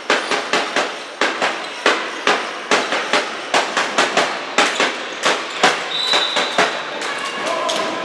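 Sharp knocks at a fairly even pace of about two a second, echoing through a large sports hall, with a brief high tone about six seconds in.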